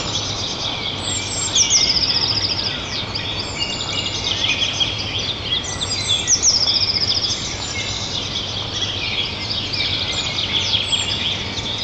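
Several songbirds singing at once. One of them repeats a short, fast trill at a steady high pitch about every four to five seconds, over a faint steady low hum.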